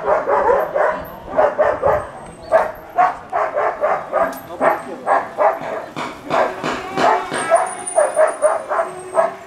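A dog barking over and over, about two to three short barks a second, without a break.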